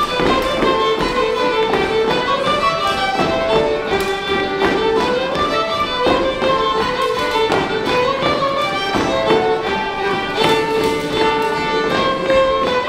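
Solo fiddle playing a lively dance tune, with the dancers' steps tapping on a wooden floor under it.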